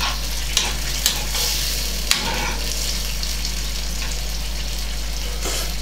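Carrot and tomato marinade bubbling and sizzling steadily in a frying pan, with three sharp taps in the first half as it is stirred.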